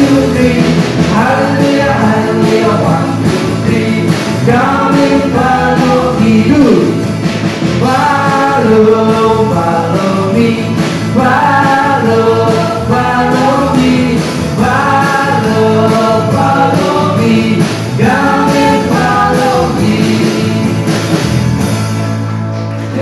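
Singing over band accompaniment, a Christian worship song, dying away near the end.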